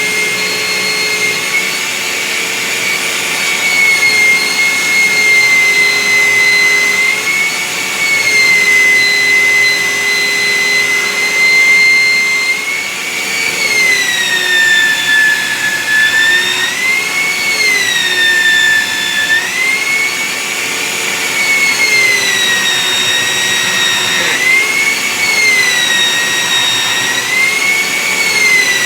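Handheld electric sander, clamped upside down and used as a bench sander, running loud with a high motor whine. In the second half its pitch sags and recovers several times as wood is pressed against it and the motor is loaded.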